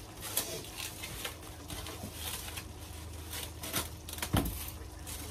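Kitchen handling sounds: scattered light taps and rustles, with one louder knock about four seconds in, over a low steady hum.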